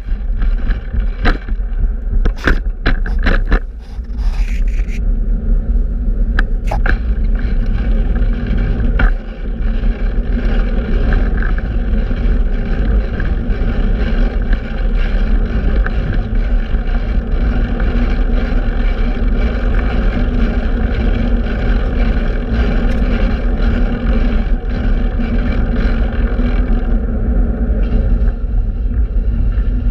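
Steady rush of wind on the microphone and road rumble from a fixed-gear bicycle being ridden, with a few sharp knocks in the first few seconds and one more about nine seconds in.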